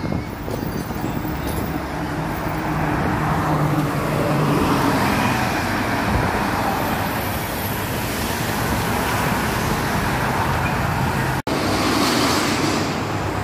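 City bus engine running as the bus drives off past the camera, over steady street traffic noise. A sudden brief drop-out near the end, after which the traffic noise goes on.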